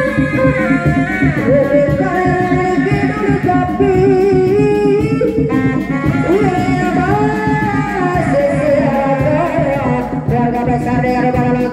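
Sundanese reak procession music: fast, dense drumming on dog-dog drums with a sliding, wavering melody line carried over it.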